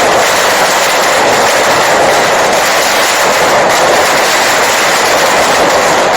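Fireworks crackling in a rapid, continuous stream of small pops, loud and without a break.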